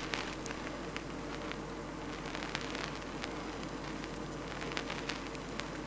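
Metal lathe screw-cutting a thread in a bronze bar with a threading insert: a steady hiss with a faint hum and scattered light ticks. The cut runs without chatter, the work supported by a tailstock centre.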